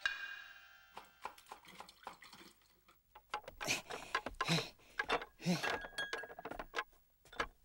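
Stacked bowls and small cups on a carried wooden rack rattling and clinking, an irregular patter of clicks and knocks with a brief ring of one cup.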